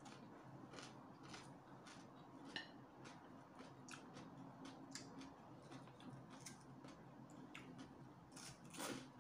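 Faint, irregular small clicks and crunches of someone chewing crunchy stir-fried noodles and vegetables and handling chopsticks, over a low steady hum, with a louder noisy sound near the end.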